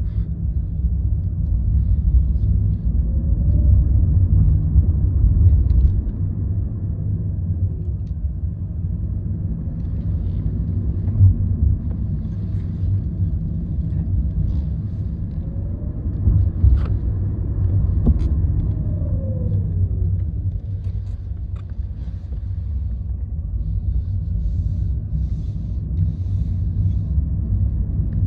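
Hyundai Ioniq Electric 38 kWh on the move: steady low road rumble, with a faint whine that glides up and then down in pitch a few times. This whine is plausibly the strange noise the owner hears under regenerative braking and uphill acceleration.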